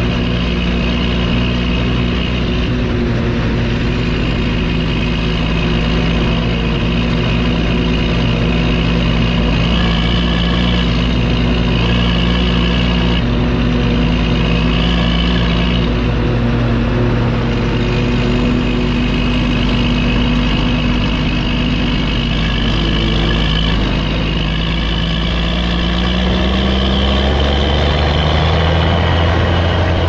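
Fendt 930 Vario TMS tractor's six-cylinder diesel engine running steadily under load, heard close to its exhaust stack. Near the end the engine note rises as the tractor speeds up.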